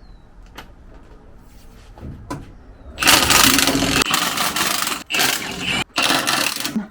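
Ryobi 3/8-inch electric ratchet backing out exhaust manifold bolts: a few light clicks, then about three seconds in it runs for about two seconds, followed by two shorter bursts.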